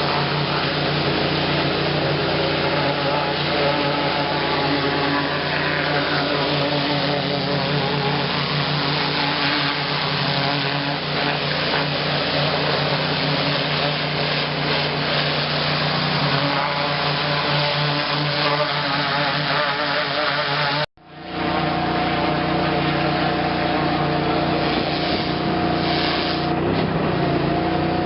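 High-pressure washer (a 4,500 psi, 6 gallon-a-minute unit) running steadily: the engine's even drone with a constant hiss of spray. The sound breaks off for an instant about two-thirds of the way through, then carries on unchanged.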